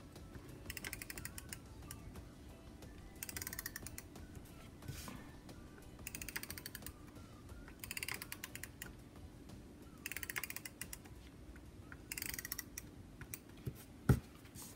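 Tombow correction-tape dispenser drawn across paper in several short strokes, each stroke a quick whirring run of fine clicks from its winding gears as the tape is laid down. A single sharp knock near the end.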